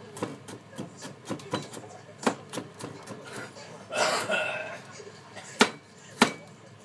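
Kitchen knife cutting a tomato on a cutting board: irregular sharp taps as the blade strikes the board, with a few louder strikes near the end.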